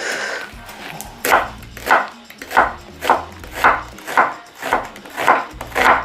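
Chef's knife slicing a red onion on a wooden cutting board: about nine even strokes, roughly two a second, starting about a second in.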